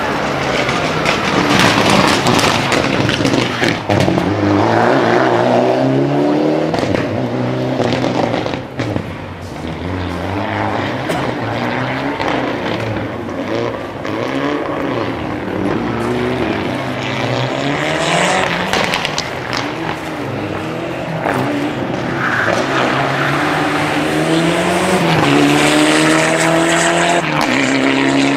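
Rally car engines revving hard as the cars run along the stage, the engine note repeatedly climbing and dropping with gear changes and throttle lifts. Near the end a loud engine note climbs steadily.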